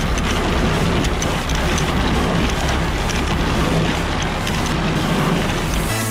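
Tractor engine running steadily with the rattle of a self-loading hay wagon's pickup chains and sprockets gathering hay. The tractor is a Vladimirets T-25 fitted with an air-cooled four-cylinder LTZ-55 engine.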